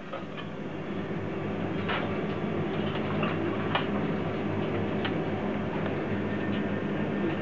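Restaurant kitchen ambience during service: a steady mechanical hum of kitchen machinery, with a few light clicks and clinks of utensils scattered through it.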